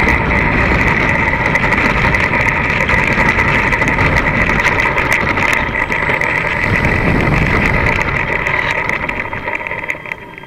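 ParkZone Stinson RC plane's electric motor and propeller whining steadily, heard close up from on board, over a rough rumble of its small wheels rolling on pavement as it taxis. The motor winds down over the last two seconds.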